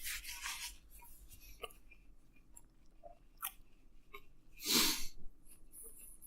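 A person chewing pizza close to the microphone, with soft wet mouth sounds and scattered small clicks, and one louder burst of noise about five seconds in.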